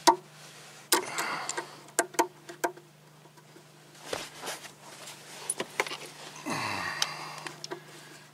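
Needle-nose pliers working the metal tab of a battery cable clamp: irregular sharp metallic clicks and ticks with short scrapes, and a longer scrape about six and a half seconds in, as the tab is bent up to free the broken clamp piece. A steady low hum runs underneath.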